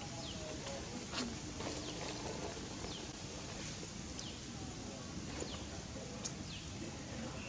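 Birds chirping outdoors: short, quick downward-sweeping chirps about once a second, over a steady background hiss.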